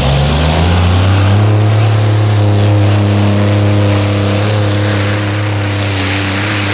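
Supercharged engines of a multi-engine modified pulling tractor revving up as it launches into a pull, rising in pitch over about the first second, then held at a steady high scream under full load as it drags the sled.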